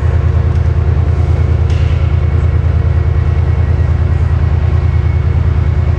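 Diesel train engines idling steadily at a station platform, a constant low engine hum with no change in pitch.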